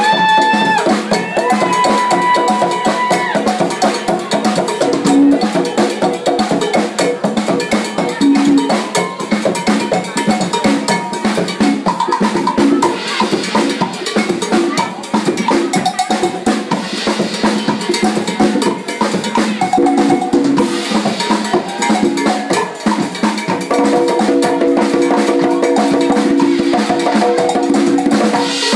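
Live band playing Latin percussion: a cowbell and congas drive a busy rhythm of close, even strokes, with held melody notes sounding over it.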